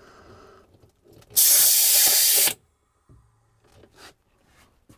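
A loud hiss of compressed air rushing through the line, lasting about a second and cutting off sharply, as the air supply to the pneumatic heat press and its oil lubricator is turned back on.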